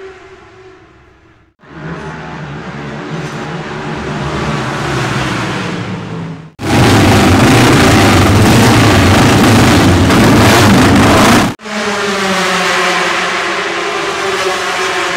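Classic British racing motorcycle engines, Norton and Matchless, running and revving in a string of short clips that cut abruptly from one to the next about every five seconds. The loudest, in the middle, is several machines running together; the last is a Norton running steadily.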